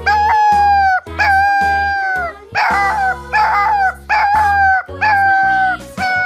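A dog howling over and over, about six drawn-out howls of roughly a second each that hold their pitch and then drop at the end, over background music.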